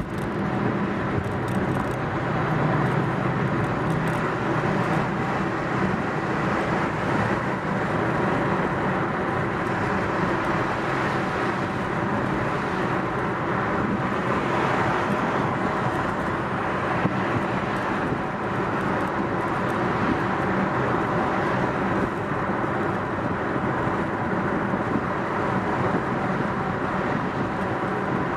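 Steady engine and tyre noise of a car driving along a city road, an even hum with no sudden events.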